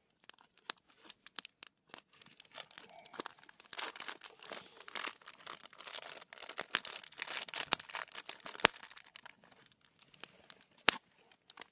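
Plastic bacon packaging crinkling and rustling as it is opened and a block of bacon pulled out, busiest in the middle, with a few sharp snaps near the end.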